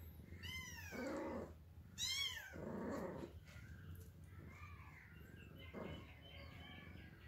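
A domestic cat meows twice, two drawn-out meows whose pitch rises and falls, about a second and a half apart.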